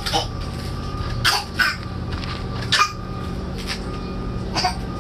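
A baby's dry cough: two quick coughs about a second in, then single coughs near three and near five seconds. The mother takes it for a cough that points to bronchitis.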